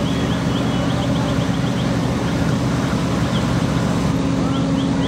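Fire engine's diesel engine running steadily, a constant loud drone.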